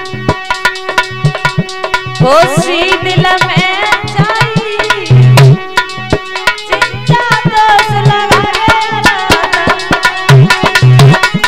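Instrumental music: a dholak played fast, with dense strokes and deep bass thumps. A melody instrument plays held notes and sliding phrases over it.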